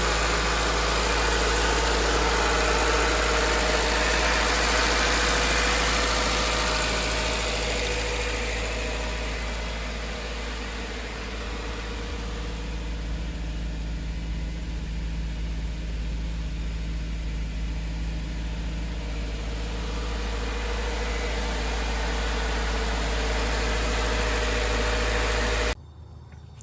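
Subaru Outback engine idling steadily, with a steady low hum. The sound cuts off suddenly near the end.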